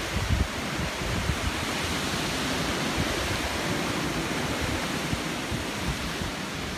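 Strong storm wind blowing with a steady rushing hiss, and gusts buffeting the microphone with low rumbles, strongest in the first half second.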